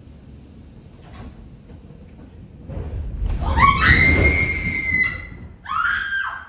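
A large tree being uprooted and crashing down, heard as a heavy low rumble that swells about three seconds in. Over it a person screams one long high rising scream, then a second shorter scream near the end.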